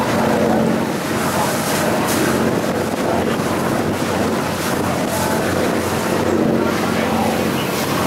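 Tour boat's engine running at a steady cruising hum, with water rushing and splashing along the hull and wind buffeting the microphone.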